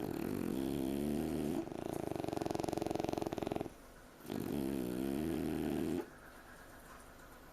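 French bulldog snoring in its sleep. A snore of about a second and a half runs straight into a rapidly fluttering, rattling snore of about two seconds. After a short pause comes another snore of nearly two seconds. The noisy breathing is typical of the breed's short, flat-faced airway.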